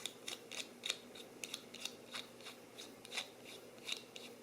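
Threaded back cap of a small laser line marker being unscrewed by hand: a run of faint, irregular clicks and scrapes as the threads turn.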